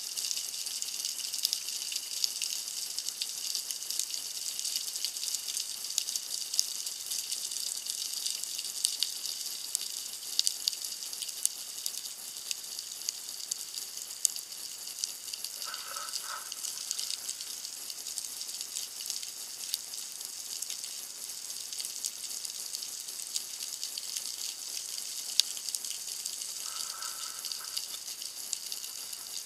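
Underwater ambience picked up by a diving camera: a steady, dense crackle of fine high clicks. Two brief faint tones come about halfway through and again near the end.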